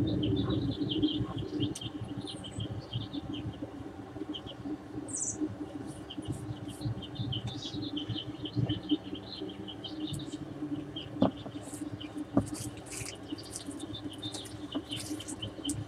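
Many small birds chirping and twittering in quick short notes over a low steady hum, with a couple of sharp clicks late on.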